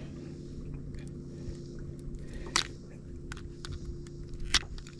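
Small wet scrapes and ticks of a bass being handled while a deeply swallowed hook is worked loose from its throat. Two sharp clicks come about halfway through and near the end, over a steady low hum.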